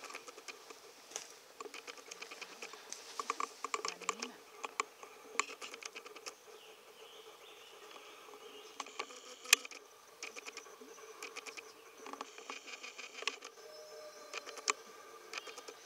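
Irregular pattering, rustling and crackling of dry leaf litter and wood chips under the paws of wolf cubs scampering about, with a few sharper single clicks.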